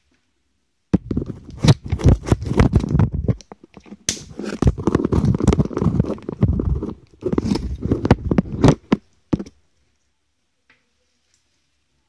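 An African grey parrot working at the taped-on phone with its beak and claws: loud scratching, scraping and tearing right against the microphone, in several spells over about eight seconds, then stopping.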